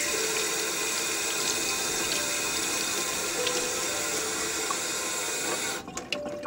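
Water from an outdoor tap running steadily into a metal sink and splashing over hands being rinsed. Near the end the flow stops abruptly, leaving a thin trickle.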